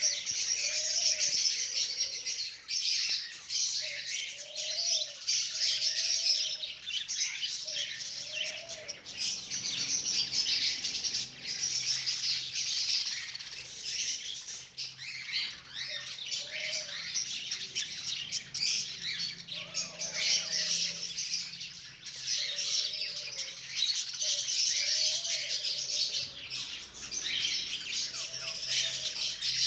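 Many small birds chirping and twittering together without pause, with short, lower calls breaking in every second or two.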